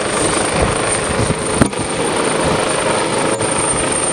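Coastguard search-and-rescue helicopter hovering low over the sea, its rotor noise mixed with a steady rush of surf, with one sharp knock about one and a half seconds in.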